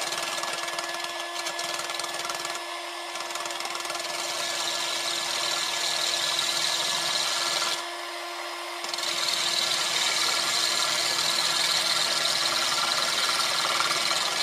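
Cordless drill running steadily with a small abrasive grinding bit, grinding down the steel weld on a motorcycle exhaust baffle; a high, gritty grinding hiss over the drill motor's steady whine. The grinding lets off briefly about 8 seconds in while the drill keeps spinning, then bites again.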